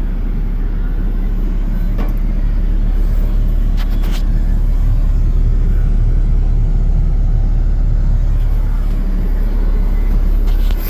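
Kobelco SK215SRLC excavator's diesel engine running steadily, with a couple of light clicks about two and four seconds in.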